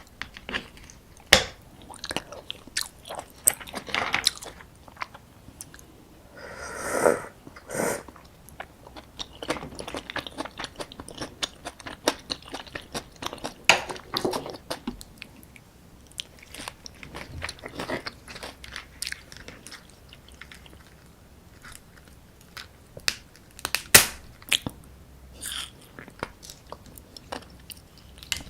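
Close-miked eating of soy-sauce-marinated raw crab: biting and chewing with crunchy cracks and clicks, irregular throughout, and one longer, louder stretch of sound about seven seconds in.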